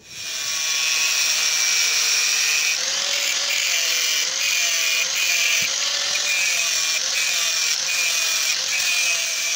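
Electric angle grinder with a thin cut-off disc cutting through a flat steel bar, throwing sparks. The motor's high whine stays steady, with brief dips and slight pitch drops as the disc bites into the metal under load.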